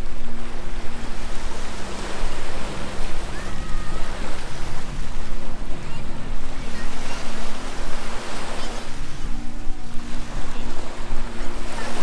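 Small waves breaking and washing up the sand, swelling and easing every few seconds, with wind gusting on the microphone. A steady low hum runs underneath.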